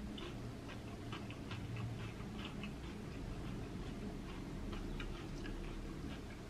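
A person chewing food with the mouth closed: soft, wet mouth clicks and smacks at an irregular pace, about three a second.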